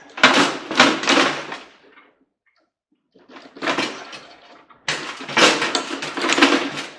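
Metal parts of a microwave being pulled, scraped and rattled during teardown, in three noisy stretches of a second or two each.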